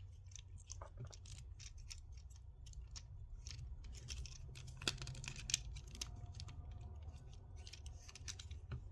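Plastic parts of a Transformers action figure clicking and scraping as they are handled and pegged together during transformation, in many small irregular clicks with two sharper snaps around the middle.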